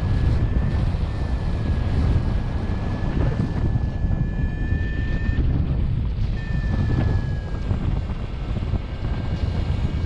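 Wind rushing over the microphone of a paraglider in flight, a steady low rush. Above it runs a thin high whistling tone that drifts slightly in pitch and breaks off for about a second in the middle.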